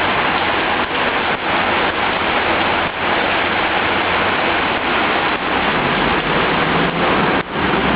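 Heavy rain pouring down: a loud, steady, even hiss of falling water.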